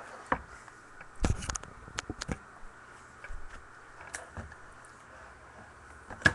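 Hands handling a trading-card box and its packaging: a quick cluster of rustles and clicks about a second in, a few more sharp clicks soon after, and one sharp click near the end.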